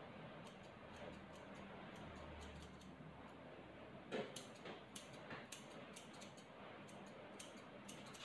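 Faint, irregular sharp clicks of dog-grooming tools, with one louder click about four seconds in.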